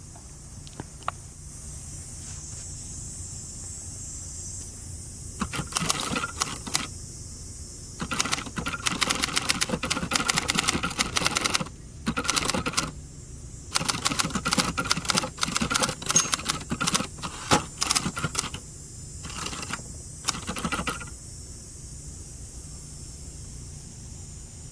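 Typing on a 1967 Hermes 3000 manual typewriter: fast runs of key strikes in several bursts with short pauses between them, starting about five seconds in and stopping a few seconds before the end.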